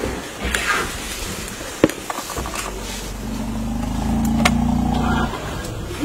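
A vehicle engine running, heard most clearly as a steady low hum for about two seconds in the second half, with a single sharp click a little before two seconds in.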